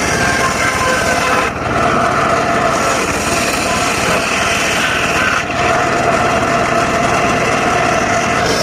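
Mobile circular saw running steadily while sawing dry teak, a constant high whine over machine noise, with two brief dips in level, about a second and a half in and again about five and a half seconds in.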